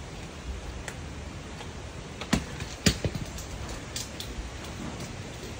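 Wind blowing through trees as a rain storm gathers: a steady rush with a low rumble on the microphone, broken by scattered sharp ticks and taps, the loudest a little past two and three seconds in.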